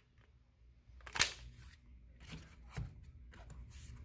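Clicks and light knocks from handling a polymer-framed HK VP9 pistol and its magazines over a hard plastic case. One sharp click comes about a second in and is the loudest, followed by a few softer clicks.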